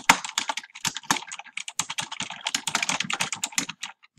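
Typing on a computer keyboard: a quick, even run of key clicks, several a second, with a brief pause near the end.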